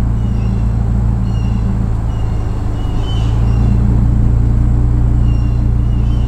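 A car engine idling steadily, heard from inside the parked car's cabin. Short high chirps recur about once a second over it.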